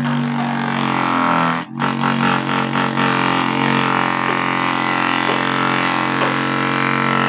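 The 125-watt electric motor of a homemade wooden grass chopper runs with a steady droning hum while its blades shred grass leaves as they are fed in, adding a grainy rushing sound. The sound briefly cuts out about a second and a half in.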